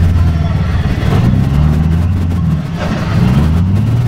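Off-road truck engine running hard, revving up twice with its pitch rising and falling.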